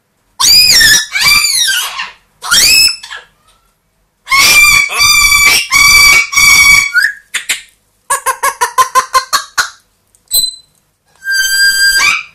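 A pet parrot calling loudly: a few arching squawks, then long held calls, a fast run of short clipped notes about seven a second, a brief high whistle, and one more held call near the end.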